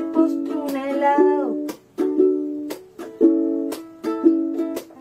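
Ukulele strumming chords in a steady rhythm, about two strums a second once a voice stops, about a second and a half in.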